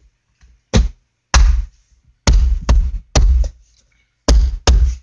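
Interior trim panel of a 2005–2010 Toyota Avalon being knocked back into place, about seven sharp thumps at uneven intervals as it is seated.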